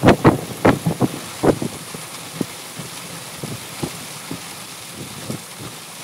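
Heavy rain falling in a thunderstorm. A run of loud, irregular low crackles fills the first second and a half, then dies away into a steady rain hiss with a few scattered soft thumps.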